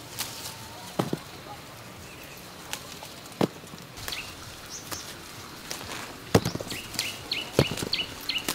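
Scattered knocks and clicks, like footsteps or things being handled, with a quick series of about six short, high bird chirps near the end.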